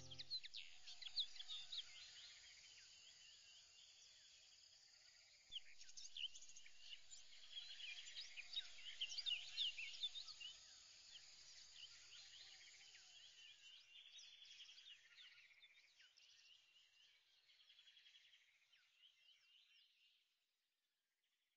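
Faint chorus of many quick, high bird chirps, getting busier about five seconds in and then fading away before the end.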